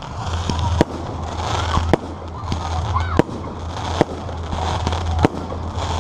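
Fireworks going off: a sharp bang roughly every second over a constant background of crowd voices and a steady low hum.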